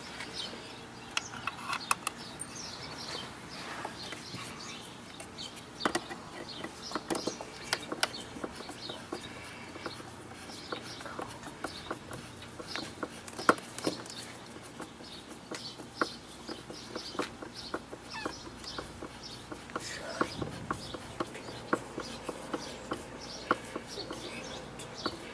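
Birds calling and clucking throughout, with scattered sharp clicks and knocks from hand work on the outdoor receptacle and its box.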